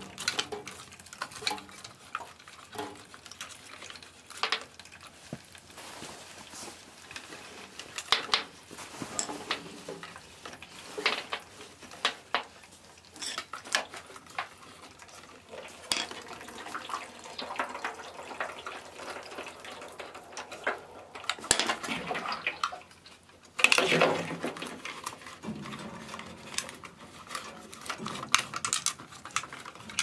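Scattered clicks, clunks and knocks of a Honeywell gas control valve being spun off a water heater tank and the replacement threaded on by hand. A little water leaks from the tank while the valves are swapped, and there is a louder rush of handling noise about three-quarters of the way through.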